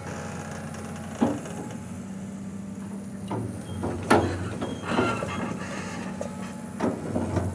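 Komatsu hydraulic excavator's diesel engine running steadily, with several sharp knocks as the boom and bucket swing. The loudest knock comes about four seconds in.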